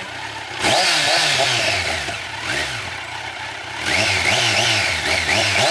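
2020 Kawasaki Z900's inline-four engine on its stock exhaust, revved while standing. About half a second in there is one sharp blip whose pitch falls slowly back toward idle, a smaller blip near halfway, then a quick run of short throttle blips near the end.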